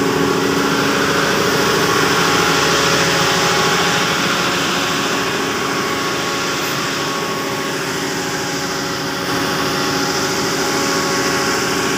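Laverda 3450 combine harvester running, heard close alongside: a steady engine drone with the whir of its working machinery.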